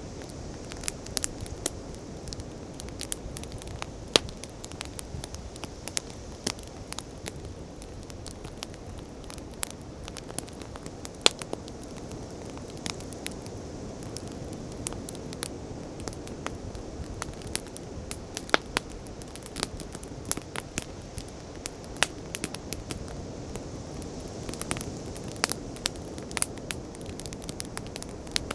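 Wood fire crackling, with irregular sharp pops and snaps, several a second, over a steady low rush.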